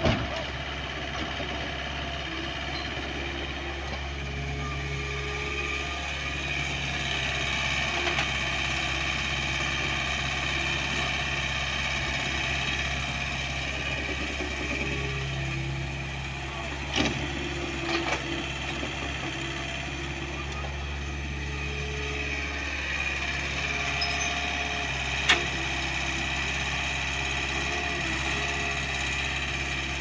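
Kobelco mini excavator's diesel engine running steadily, its note rising and falling every few seconds as the hydraulics take load while it digs and loads soil. A few sharp knocks stand out, around the middle and about twenty-five seconds in.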